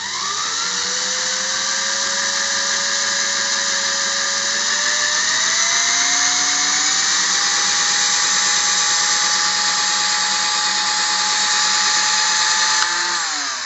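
Cordless screwdriver motor running steadily as it turns a wire-winding rig, coiling wire into a small spiral-prismatic packing spring. Its whine rises in pitch about halfway through, then falls away as the motor stops near the end.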